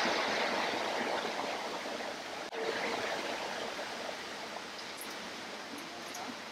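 Rushing water of a rocky creek, a steady even rush that dips briefly about two and a half seconds in.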